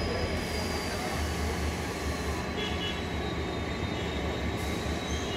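Steady low engine drone with a faint high whine that slides slowly down in pitch, and a short high chirp a little past halfway.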